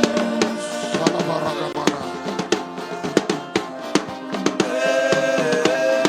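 Live gospel worship music: a drum kit playing busy, irregular fills with snare and bass drum hits over sustained keyboard or vocal tones.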